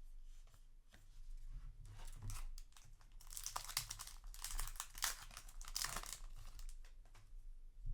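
Foil wrapper of a Yu-Gi-Oh! booster pack crinkling and tearing open, a dense run of crackles for about three seconds midway, with lighter crinkles either side.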